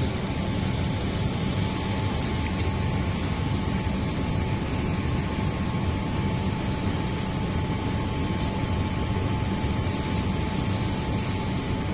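Steady low mechanical drone of running machinery, unchanging throughout, with a faint constant whine above it.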